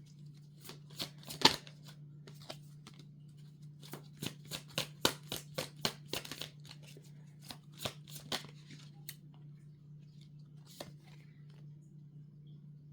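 Tarot cards being shuffled by hand: a run of quick card slaps and clicks, thickest in the middle, with a low steady hum underneath.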